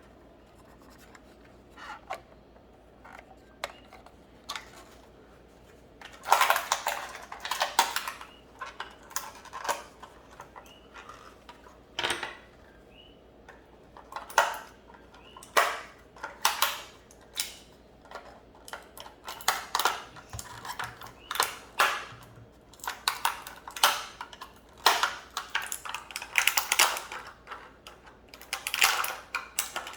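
Small hard plastic toy pieces clicking and clattering as they are handled and pulled out of a plastic toy case, in irregular bursts that grow busier after about six seconds.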